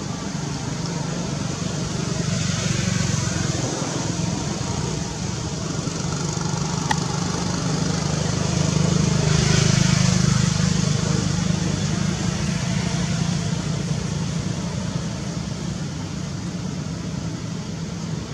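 Steady low engine hum, growing louder twice: about three seconds in and again around ten seconds in.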